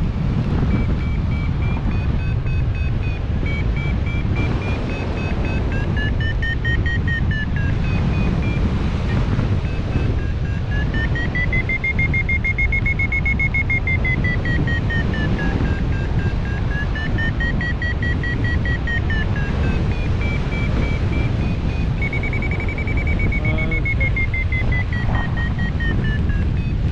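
Hang-glider variometer giving its continuous electronic sink tone, slowly rising and falling in pitch as the sink rate changes, over a steady rush of airflow wind on the microphone.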